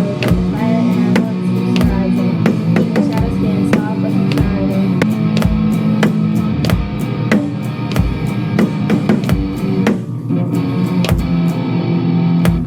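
A live band playing: a drum kit keeps a steady beat with kick drum and cymbal ticks under sustained guitar and keyboard chords.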